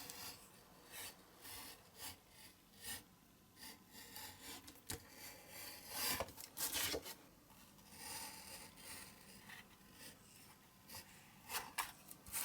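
Irregular scraping and rubbing strokes of hand work on a small part, a louder run of strokes about six to seven seconds in.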